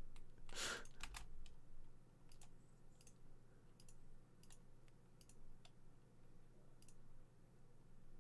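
Faint, scattered clicks of a computer mouse and keyboard, a dozen or so at irregular intervals, over a low steady hum.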